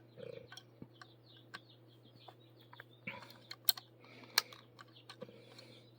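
Faint, scattered light clicks and taps of small rotary-cutter parts being handled and fitted together during reassembly, the sharpest click about four seconds in.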